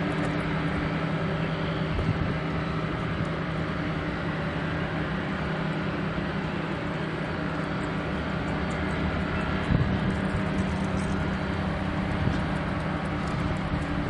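Steady low drone of approaching Union Pacific GE diesel locomotives (C44-9W and C40-8W) running light, their engines giving a constant hum of several low tones.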